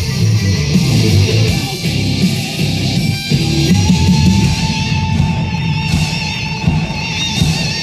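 Guitar-led rock music from an FM station playing through a vintage Pioneer SX-750 stereo receiver, loud and continuous, while its balance and treble controls are turned.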